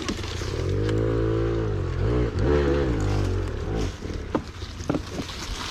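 Enduro motorcycle engine revving under load, its pitch rising and falling twice over about three seconds before dropping away, followed by a few sharp knocks.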